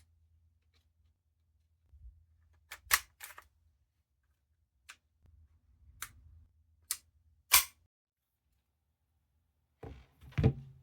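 Sharp clicks and clacks of a KSC M93R model pistol being handled and worked: about ten separate snaps of its parts, one of the loudest near the middle and a quick cluster near the end.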